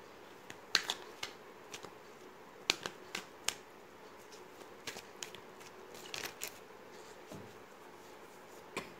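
A deck of oracle cards being shuffled and handled by hand, giving a string of irregular crisp snaps and clicks.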